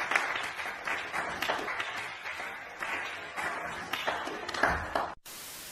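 Audience applause and clapping in a hall, many quick claps that gradually die down. Near the end it breaks off into a short burst of steady hiss.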